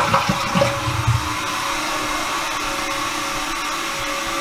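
Toilet tank refilling just after a flush: a steady hiss of water through the fill valve, with a few light knocks in the first second.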